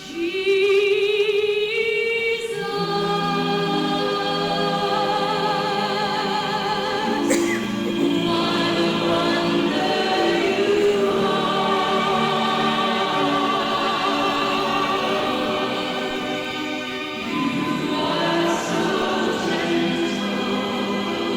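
A choir singing long, held chords with vibrato. A single held note opens it, and the full choir comes in about two and a half seconds in.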